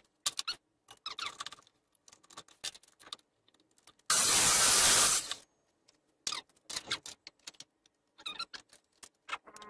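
Workshop handling noises: scattered knocks and clicks of wood and tools being moved. About four seconds in, a loud burst of even rushing noise starts abruptly and stops after about a second and a half.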